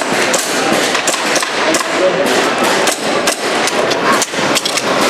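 Gas airsoft pistol firing a string of sharp cracks at an uneven pace, several a second, over the steady hubbub of a busy exhibition hall.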